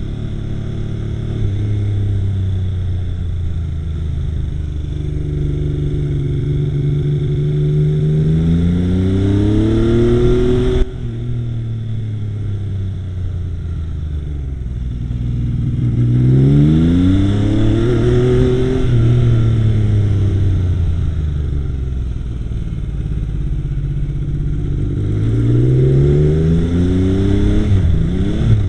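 Yamaha XS850 inline-three motorcycle engine running, its revs climbing and falling several times: a rise with a sudden drop to a lower pitch about eleven seconds in, another rise and fall in the middle, and a climb again near the end. The owner suspects an occasional misfire.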